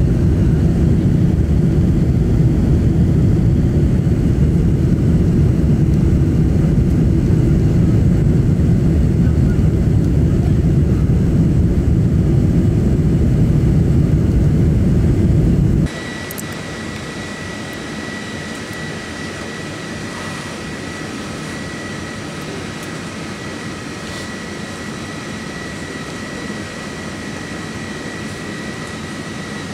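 Cabin noise from a Boeing 747-400 climbing out after takeoff on its Rolls-Royce RB211 engines: a loud, steady rumble with a lot of bass. About 16 seconds in it cuts suddenly to an Airbus A380-800 cabin on its Rolls-Royce Trent 900 engines. That sound is much quieter, with a thin steady whine over a softer rush.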